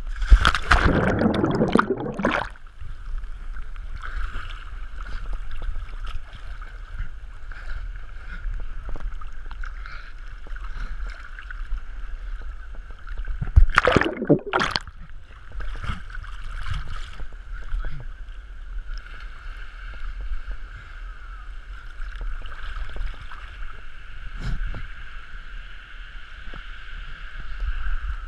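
River water rushing and gurgling around a swimmer carried by the current, heard from a camera at the water's surface. Loud splashing in the first two seconds and again around fourteen seconds in, as the camera goes under and comes back up.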